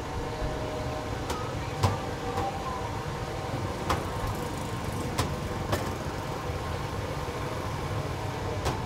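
Street ambience at a food stall: a steady low rumble of traffic, with a few sharp clinks and knocks as containers are handled. The loudest knock comes about two seconds in.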